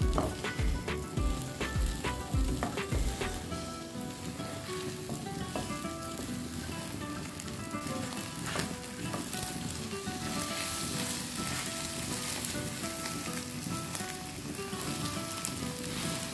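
Beaten eggs sizzling in butter in a nonstick frying pan as they are stirred and pushed into curds with a silicone spatula.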